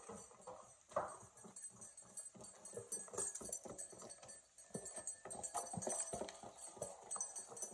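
Goat hooves and boots stepping on a concrete barn floor: an irregular clatter of short knocks, loudest about a second in.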